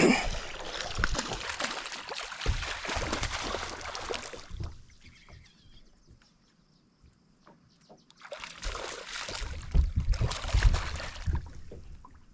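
Water splashing and sloshing as a hooked smallmouth bass thrashes at the surface beside a bass boat. It comes in two spells: one at the start, and a second later on as the fish is brought to the boat's side to be landed by hand.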